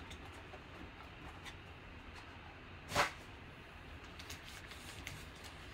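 Quiet rustling and faint ticks of foil trading-card packs and the cardboard box being handled, with one brief louder rustle about three seconds in.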